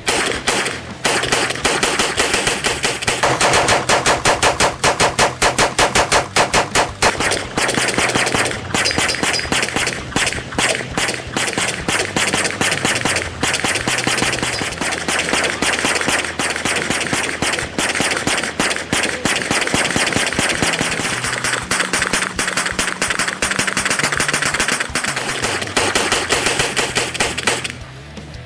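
Tippmann Armory 9mm Gatling gun, an eight-barrel hand-cranked gun, firing a long unbroken string of rapid 9mm shots, its rate set by how fast the handle is turned. The firing stops shortly before the end.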